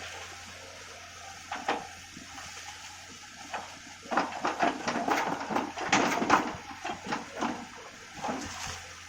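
Water and wet mud splashing: a few single splashes, then a dense run of irregular splashes and knocks for about three seconds midway, over a steady low hum.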